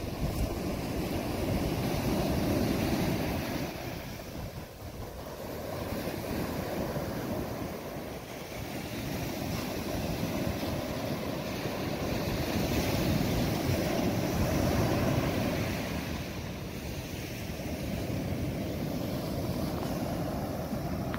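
Surf washing onto the beach, a steady rushing that swells and eases every few seconds, with wind rumbling on the microphone.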